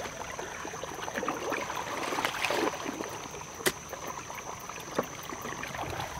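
Muddy pond water running through a freshly dug trench, flowing downhill and scouring loose dirt out of the ditch, with sloshing as hands work the mud. Two sharp clicks, one a little past the middle and one near the end.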